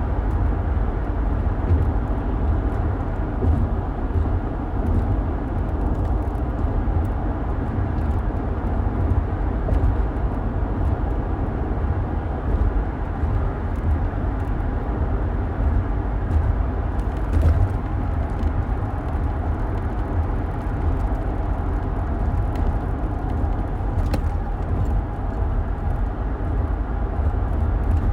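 Steady road noise of a car driving, heard from inside the cabin: a constant low rumble with tyre and engine noise that neither rises nor falls.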